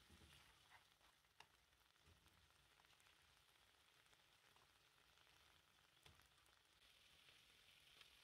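Faint, steady sizzling of shrimp cooking in sauce in a frying pan, with a couple of light clicks of tongs against the pan.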